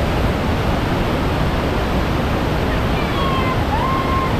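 Waterfall thundering: a loud, steady rush of falling whitewater.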